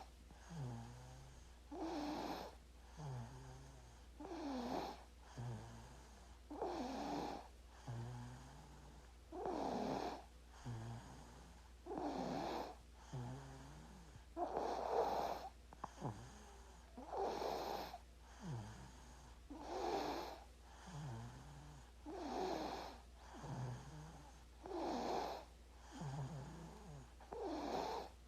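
A sleeping baby snoring in a steady rhythm, one breath about every two and a half seconds. Each breath has a louder, higher snore and a shorter, low-pitched one, over a faint steady low hum.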